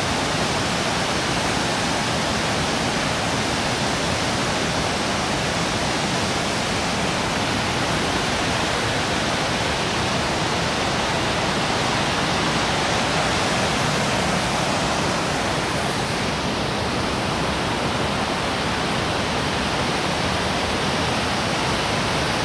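Rushing water of a rocky mountain stream, a steady, unbroken noise.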